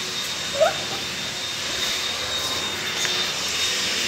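Steady whooshing noise of a running electric appliance motor with a thin, steady high whine, and one brief upward squeak about half a second in.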